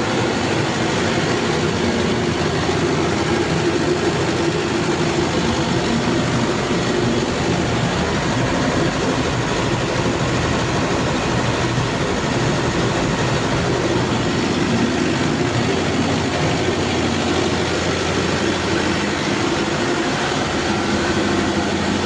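Cummins KTA50 turbocharged V16 diesel engine running steadily at a constant speed, with a dense, unchanging drone.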